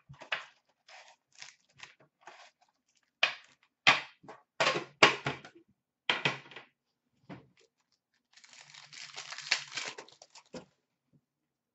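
Foil-wrapped hockey card packs crinkling and rustling in short bursts as they are handled. Late on comes a continuous ripping of about two seconds as one pack is torn open.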